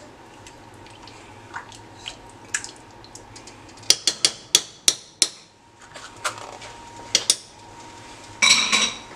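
Metal ladle stirring thick chili in a stainless steel pot, with soft scraping at first. About four seconds in comes a quick run of sharp metal clinks against the pot, and near the end a short ringing clatter of metal on metal.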